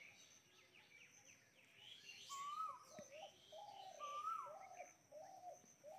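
Faint bird calls in the background: a repeated call that rises and then drops, about every two seconds, with shorter, lower calls between them.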